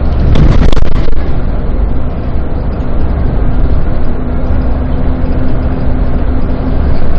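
Bus running on the road, heard from inside: a steady, loud low engine and road rumble, with a brief loud burst of noise about half a second in.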